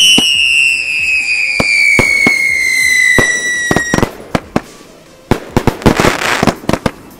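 Fireworks going off. A loud whistle falls steadily in pitch and cuts off about four seconds in, with sharp launch and burst thumps under it. After a short lull, a gold shell breaks into dense crackling.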